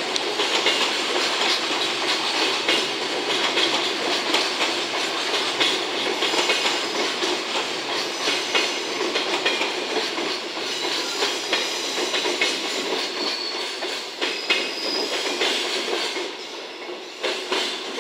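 Freight train of Koki container flatcars hauled by an EF64 electric locomotive rolling past: a steady rumble of steel wheels on the rails, with clicks as the wheels cross the rail joints.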